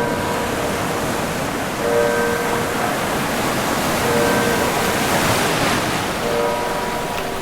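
Sea waves washing and breaking, with one larger wave swelling about two-thirds of the way through. Over the surf, a short held tone sounds about every two seconds, four times in all.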